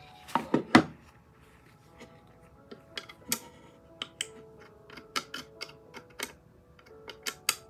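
Sharp, irregular clicks and taps of a screwdriver and screw against a guitar stand's parts as a screw is tightened, with a quick cluster of loud clicks about half a second in and scattered ones after. Faint background music underneath.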